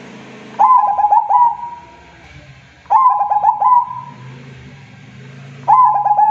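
Zebra dove (perkutut) singing. It gives three repeated phrases about two and a half seconds apart, each a quick run of staccato notes ending in a drawn-out coo. A faint low hum runs underneath.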